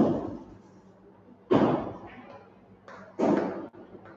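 Chalk knocking against a blackboard while writing: three sharp knocks about a second and a half apart, each dying away over about half a second.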